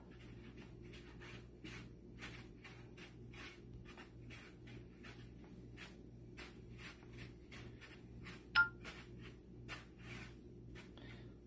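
Hands rolling a rope of potato-and-ricotta gnocchi dough on a floured wooden board: faint, irregular brushing and rubbing strokes, a few a second. About eight and a half seconds in, one short bright ping, the loudest sound, over a low steady hum.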